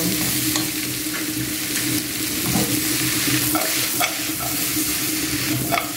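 Vegetables sizzling in a nonstick pan over high heat, with a steady hiss. The food is being stirred with a wooden spatula and the pan tossed, giving scattered light taps and scrapes against the pan. A steady low hum runs underneath.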